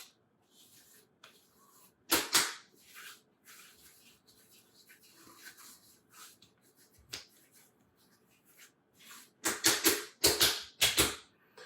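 Hands patting aftershave splash onto the face: a couple of short slaps about two seconds in, then a quick run of four or five near the end, with near quiet in between.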